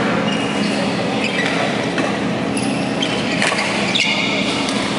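Badminton rally: rackets striking a shuttlecock with several sharp clicks and sports shoes squeaking on the court floor, over the steady hum and echo of a large sports hall.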